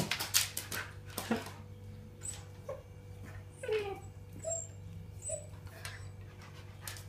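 Siberian husky whimpering in a few short, high whines, with one longer falling whine about halfway through. A few sharp clicks come near the start.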